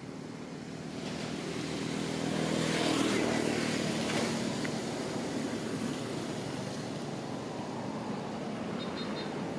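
A motor engine passing by, with a low hum that builds to its loudest about three seconds in and then eases off into a steady background rumble.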